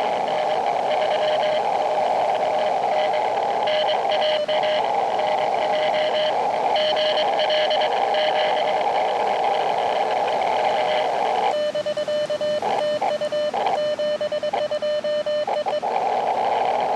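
Morse code (CW) from an Elecraft KX2 transceiver: a single beeping tone keyed in dots and dashes over steady band hiss. About eleven and a half seconds in, the hiss drops away and a stronger, cleaner keyed tone runs for a few seconds.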